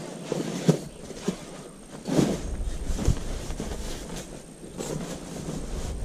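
Nylon rustling of a sleeping mat and sleeping bag being handled and laid out on a camp cot, with a few sharp knocks, the loudest about two seconds in.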